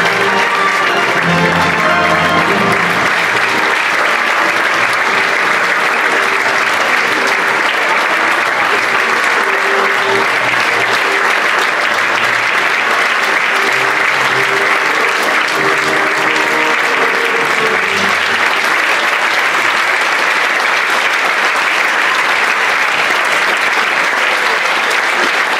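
Audience applauding steadily and loudly, with music playing underneath that fades out about three quarters of the way through.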